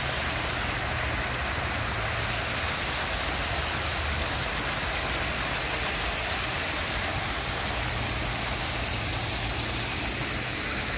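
A small cascade falling over rocks into a shallow stream: a steady splashing of running water.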